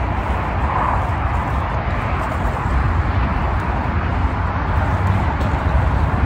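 Steady wind rumble and hiss buffeting the microphone outdoors, strongest in the low end, with no distinct events.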